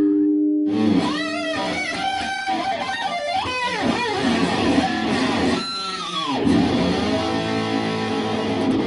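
Electric guitar playing rock, with notes bending up and down, starting just under a second in after a short pause.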